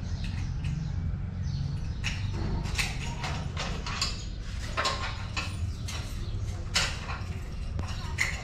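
Steel gate latch and bolt being worked by hand: a series of irregular sharp metallic clicks and clanks, the loudest about two-thirds of the way in, over a steady low rumble.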